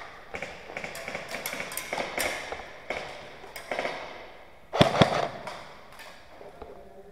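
Airsoft guns firing: a string of irregular sharp pops and cracks, with the two loudest shots close together about five seconds in.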